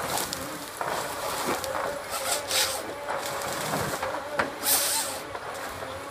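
Eltec tracked harvester with a Cummins diesel engine running steadily while its Logmax 7000 head works a tree. Two bursts of hiss and a few sharp wood cracks come from the head, one crack just before the second, louder hiss.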